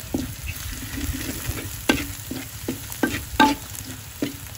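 Minced garlic, spring onion and chili frying in oil in a steel wok with a soft sizzle, stirred and scraped by a metal ladle. Sharp clinks of the ladle against the wok come through, the loudest about two and three and a half seconds in.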